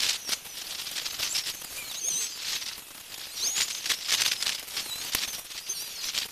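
Outdoor ambience: short high chirps and whistles over a steady hiss, with scattered sharp crackling clicks.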